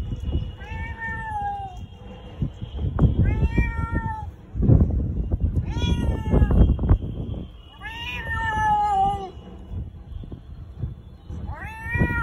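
A domestic cat meowing repeatedly: about five drawn-out meows a couple of seconds apart, each rising and then sliding down in pitch.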